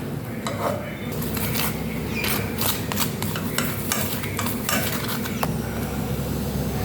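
Metal utensils clinking and scraping against pots and dishes, a scatter of sharp knocks through the first five seconds, over a steady low hum.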